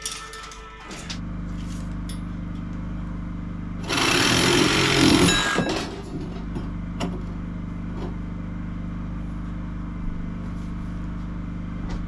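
A handheld power tool cuts through metal electrical conduit in one loud burst of about two seconds, over a steady low engine hum that starts about a second in.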